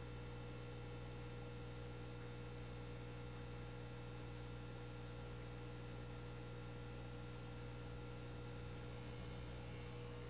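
Steady electrical hum with a faint high hiss behind it, unchanging throughout.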